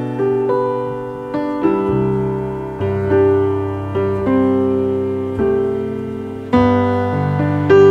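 Slow piano music: chords and single melody notes struck about once a second, each left to ring and fade.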